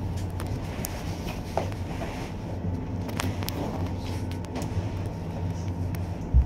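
Téléo cable car cabin in motion, heard from inside: a steady low hum with scattered light clicks and ticks. There is a single sharp thump near the end.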